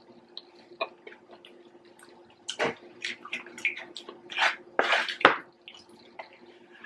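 Close-miked eating: wet mouth smacks and chewing clicks as two people eat fried dumplings, with a cluster of louder smacks about two and a half seconds in and again around five seconds. A faint steady hum runs underneath.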